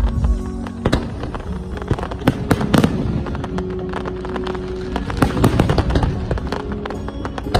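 Fireworks going off: a dense, irregular run of sharp cracks and bangs, several a second, with no break.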